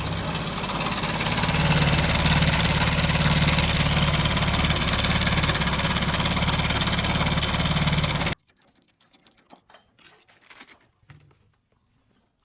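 Motorcycle engine running with the clatter of a noisy timing chain, cutting off abruptly about eight seconds in, followed by faint clicks of handling.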